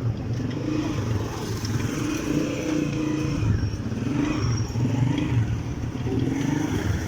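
A motorcycle engine running, its pitch rising and falling slightly.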